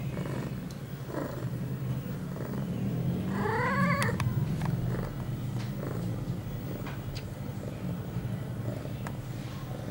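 A young female ragdoll cat in heat purring steadily while being stroked, with one drawn-out, wavering yowl about three seconds in and a fainter short call about a second in.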